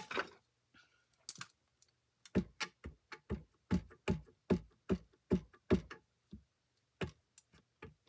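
Clear acrylic stamp block tapped repeatedly onto a Memento ink pad to ink the stamp: about a dozen short, soft knocks, roughly two or three a second.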